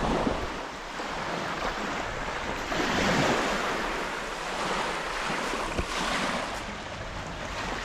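Small waves washing up on a sandy beach, swelling and easing every few seconds, with wind on the microphone.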